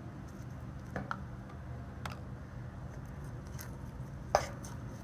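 Slime being squished and stretched by hand: a few short sticky clicks and pops, the loudest near the end, over a steady low hum.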